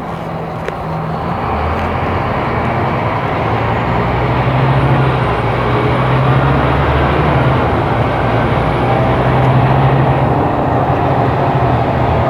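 Scania K270IB city bus's diesel engine running under load as the bus drives, the engine note growing louder over the first few seconds, with a faint high whine that slowly rises and then falls away near the end.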